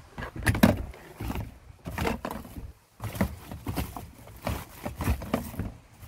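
Hands rummaging through a plastic bag, cables and gear in a car's footwell: rustling with a string of irregular plastic knocks and clunks, including handling of a plastic glove-box tray.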